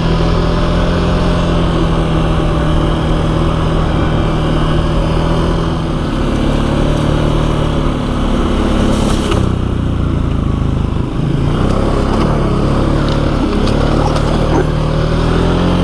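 ATV engine running steadily while riding over a rough trail, its pitch shifting a little about nine and a half seconds in, just after a brief rush of noise.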